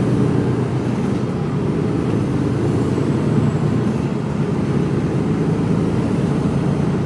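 Mercedes-Benz Actros truck engine and road noise heard from inside the cab while driving, a steady low drone.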